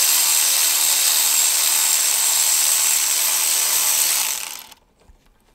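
Cordless ratchet running steadily as it backs out the 10 mm bolt of a brake line bracket, stopping suddenly about four and a half seconds in.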